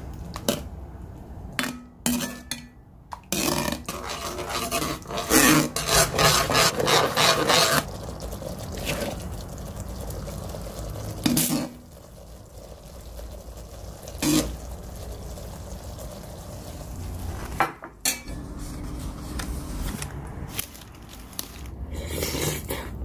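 A metal spoon stirring and scraping a thick flour-and-cream sauce in a metal pan, with a dense stretch of scraping followed by single clinks of the utensil against the cookware.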